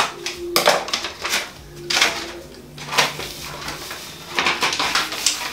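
Scissors snipping and adhesive contact paper crinkling as it is cut and folded over, in a series of short sharp rustles.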